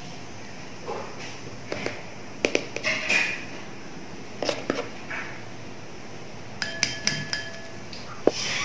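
A spoon tapping and clinking against a glass mixing bowl as dry ingredients are spooned onto flour: scattered light clicks and taps, with one clink a little past halfway that rings briefly.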